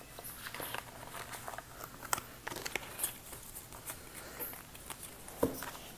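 Tarot cards being gathered up off a cloth-covered table: soft sliding and light tapping of the cards, with a louder tap near the end.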